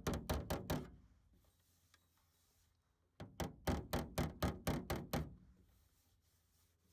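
Body hammer tapping the sheet-metal door panel of a 1977 Dodge M880 in quick, even strokes, about six a second, working out a dent. One run of taps dies away about a second in; a second run starts about three seconds in and fades out after some two seconds.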